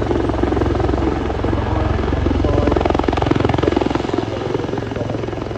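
Helicopter flying overhead: rapid, even rotor-blade chop over a steady low engine drone, growing louder a little past halfway and easing off near the end.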